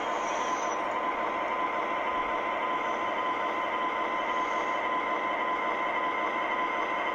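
Model train locomotive running along the layout: a steady mix of its onboard locomotive sound effects and the hum of its motors and wheels on the track.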